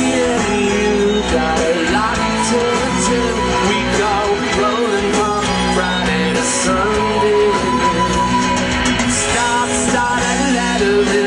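Live rock band playing a song: electric guitar and drums with repeated cymbal hits under a man's lead vocal.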